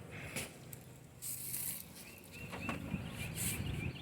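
Honeybees buzzing around an open hive, the low hum building in the second half, with a small bird's short repeated chirps behind. Two brief scratchy rustles come about a second in and near the end.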